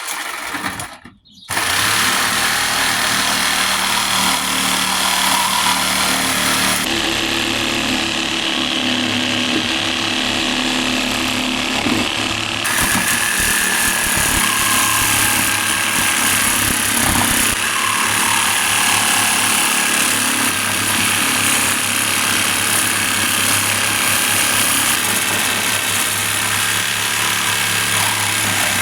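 Reciprocating saw (Sawzall) cutting through the steel shell of a scroll compressor to take the end off the motor. The saw stops briefly about a second in, then runs steadily.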